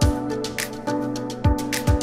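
Background music with a beat over held chords.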